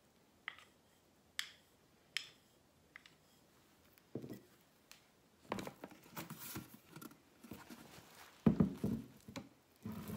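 Handling noises. A few light taps of a paintbrush against a paint bowl early on, then a wooden box being shifted about and set down on the table with a thump about eight and a half seconds in, with rustling of denim.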